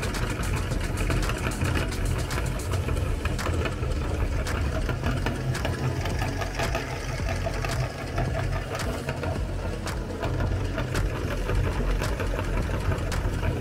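Aluminium meat grinder running steadily, its auger crunching colourful cookies into crumbs: a low machine hum with a dense crackle of small clicks.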